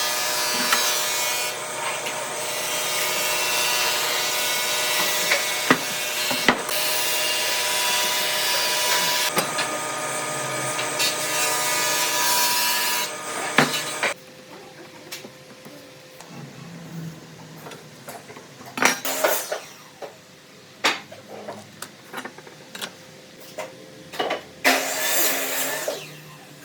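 Power tool with a steady motor hum cutting solid wood. It stops abruptly about halfway through and is followed by scattered knocks and clicks of wood being handled. A short burst of cutting comes near the end.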